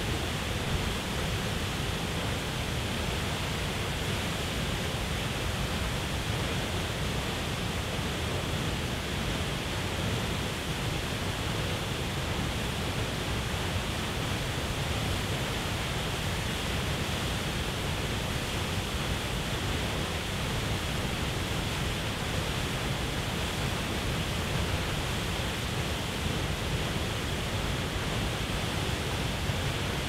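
Large waterfall plunging into a pool below: a steady, unbroken rush of falling and churning water.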